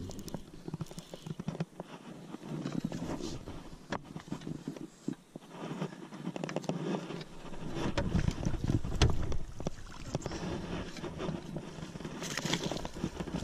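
Scattered clicks and knocks of a baitcasting reel, rod and landing net being handled on a small boat, over a haze of wind and water noise. Low rumbling handling noise grows about halfway through.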